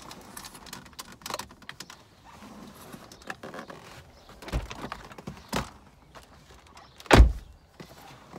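Plastic centre dash vent trim of a BMW F10 being pulled loose by hand: scattered small clicks and creaks of the plastic and its clips, with a few sharp knocks, the loudest about seven seconds in.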